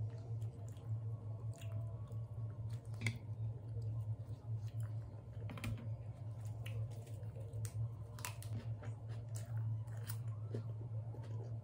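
Close-up chewing and crunching of lettuce wraps filled with spicy stir-fried pork, with many short crisp crunches throughout. A steady low hum runs underneath.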